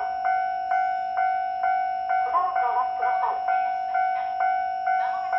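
Electronic railway warning bell ringing steadily at about two strokes a second, each stroke fading, over a held tone; an irregular warbling sound comes and goes over it, about two seconds in and again near the end.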